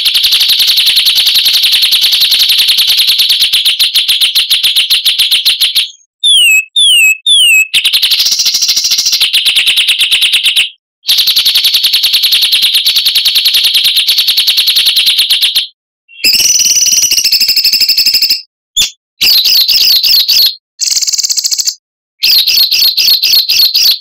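Songbird song used as masteran tutor audio for pet birds: long, very rapid, buzzy trills that break off abruptly. About six seconds in comes a run of four quick downward-sliding whistles, and near the end shorter, varied chattering phrases with sharp cuts between them.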